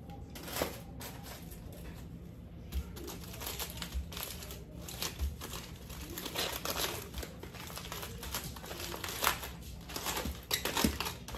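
Aluminium foil crinkling and rustling in irregular bursts as foil-wrapped baked potatoes are handled and shifted in a slow cooker.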